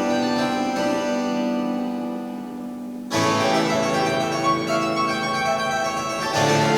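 Restored church pipe organ playing held chords; the sound thins out, then a new, fuller chord comes in abruptly about three seconds in, and another near the end.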